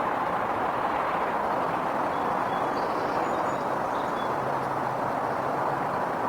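Steady road-traffic noise, an unbroken even hum, with a few faint short high chirps in the middle.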